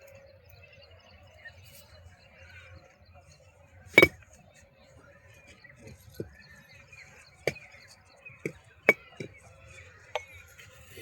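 Sharp clinks and knocks of hard objects: one loud one about four seconds in, then about six more, irregularly spaced, over the next six seconds. A faint steady hum runs underneath.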